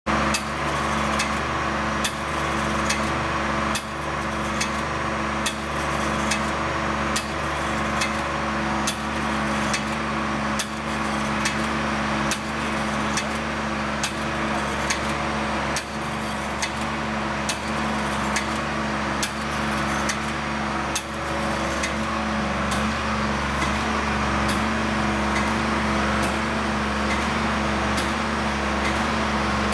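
20K hydraulic intensifier pump running on its test stand: a steady mechanical hum with rapid regular clicks, and a sharp knock about every second and three quarters as it cycles. After about 22 seconds the knocks stop and the hum runs on steady.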